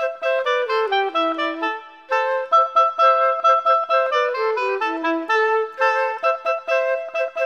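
Background music: a melody on a wind instrument, quick notes with falling runs, with a short break about two seconds in.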